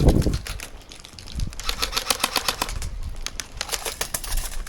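Two bursts of rapid clicking shots from a game gun firing in quick succession, one a little under two seconds in and another about a second later.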